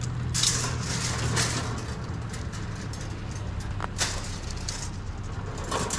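Truck engine idling steadily, with a few sharp metallic rattles of wire fencing being handled.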